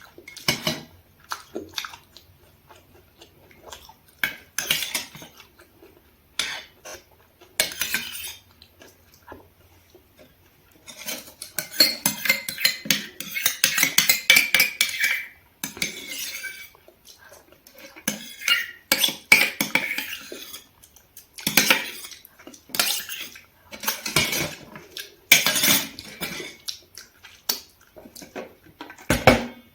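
Utensils clinking and scraping against the dishes of a thali meal in irregular strokes, with a longer run of scraping a little over a third of the way in.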